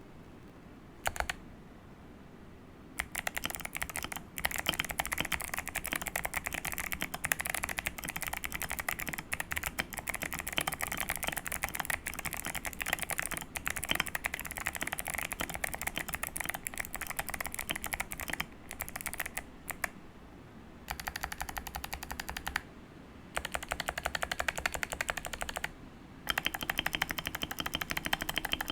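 Keychron V1 mechanical keyboard with clicky Kailh Box White switches, mounted on O-rings with tape, PE foam, plate foam and a silicone dampener, being typed on fast in a steady patter of clicks. About two-thirds of the way through it changes to three runs of repeated presses on the long stabilized keys, whose screw-in stabilizers are lubed with Krytox 205g0, with short pauses between the runs.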